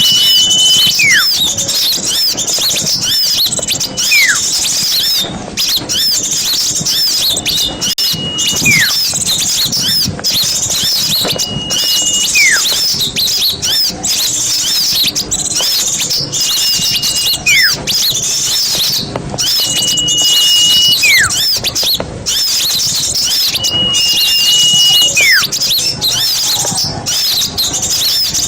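Dense chorus of small songbirds chirping rapidly at a high pitch, overlaid every four seconds or so by a repeated call: a level whistle held for about a second, then a quick falling note.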